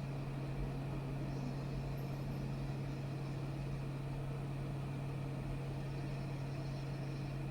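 Steady low electric hum with an even airy hiss, typical of a small fan or blower running, such as a hot-air rework station or fume extractor on a repair bench.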